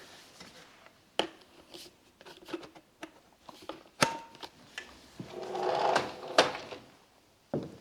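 Plastic clicks and knocks of a crevice attachment being handled and snapped onto a cordless stick vacuum, with one short beep about four seconds in.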